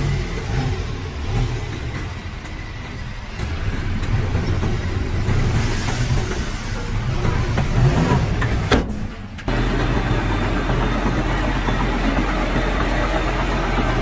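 Heavy diesel engine of earthmoving machinery working, its pitch rising and falling as it is revved under load. About nine and a half seconds in the sound cuts abruptly to a steadier engine note.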